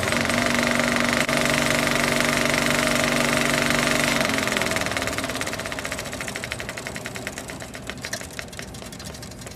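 Film projector running with a fast, even clatter and a steady hum, the hum stopping about halfway through and the clatter fading away.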